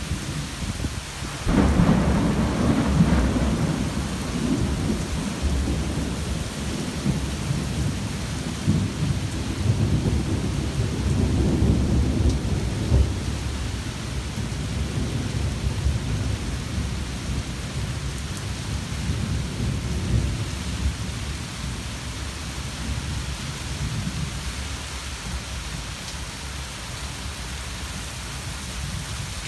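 Heavy rain falling steadily, with a sudden thunderclap about a second and a half in that breaks into a long, low rolling rumble. The rumble swells again partway through and dies away over the second half.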